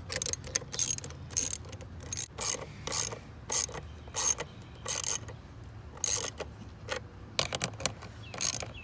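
Hand ratchet and socket clicking in short runs as it tightens a hose-clamp bolt, a burst of clicks with each back-swing of the handle, repeated every half second or so.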